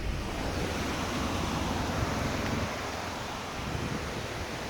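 Small mountain waterfall: a steady rush of falling water.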